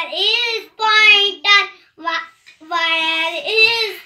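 A young child singing a rhyme unaccompanied, in short held phrases with brief gaps between them.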